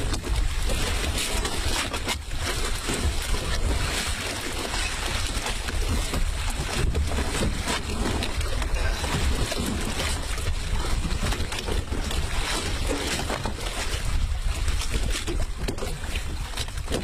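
Wind buffeting the microphone, a steady low rumble, over sea water washing against the side of a small open fishing boat.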